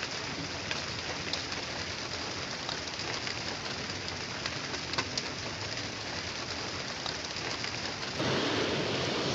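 A sleep-trainer clock's built-in rain soundtrack playing through its small speaker: a steady patter with scattered drop ticks. About eight seconds in it switches to a louder, smoother rushing sound as the next soothing sound is selected.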